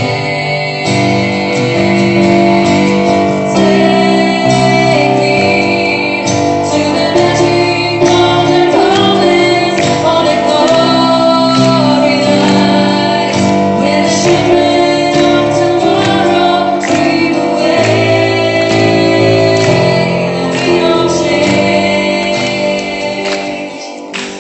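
Music: a pop ballad with a female voice singing over guitar and a full backing arrangement, fading down near the end.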